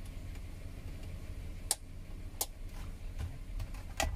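Three sharp plastic clicks as the car armrest storage box's rail stopper is handled and fitted into place, over a low steady hum.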